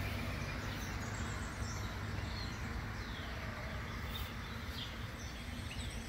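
Outdoor ambience: a steady low rumble with a few scattered bird chirps.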